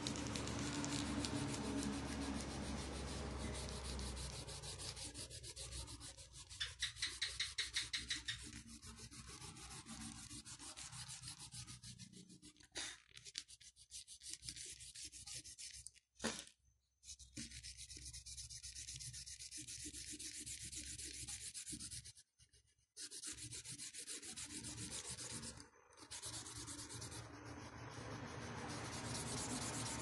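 Oil pastel rubbed back and forth across paper while colouring in, a continuous rubbing of quick short strokes. A run of louder strokes, about four a second, comes about a quarter of the way in, and the rubbing stops briefly twice past the middle.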